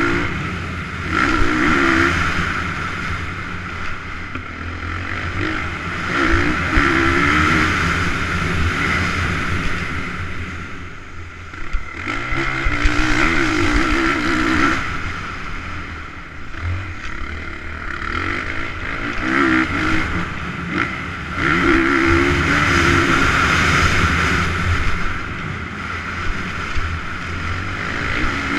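Motocross dirt bike engine revving hard and backing off again and again as the rider accelerates, shifts and slows for corners, every few seconds, with steady wind noise on the onboard microphone.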